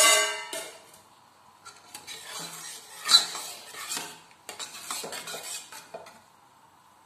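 A steel spoon stirring boiled horse gram in jaggery syrup inside a pressure cooker pot, scraping and clinking against the metal. It opens with a ringing metal clank, and the stirring stops about six seconds in.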